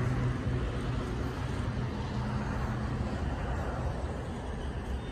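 Steady outdoor city background noise: a low rumble with no distinct events.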